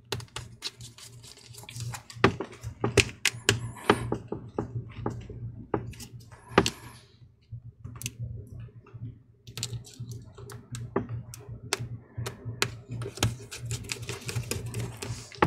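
Many small, irregular clicks and taps of a precision screwdriver working screws into the metal hinge brackets of a MacBook Air's screen, over a low steady hum.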